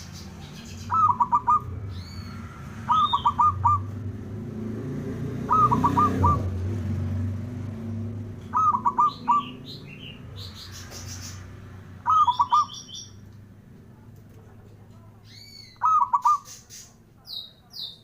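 Zebra dove (perkutut) cooing: six short phrases, each a quick run of a few clipped notes, spaced a few seconds apart. Higher thin chirps of small birds fall between the phrases, over a low steady hum.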